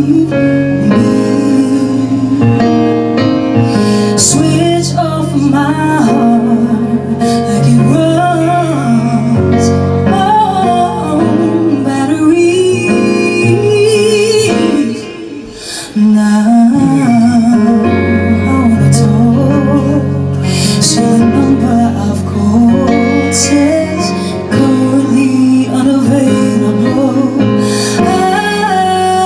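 Live pop-soul band playing: a female lead singer over bass, drums, electric guitar and keyboards, with backing vocals. The music drops away briefly about halfway through, then comes back in full.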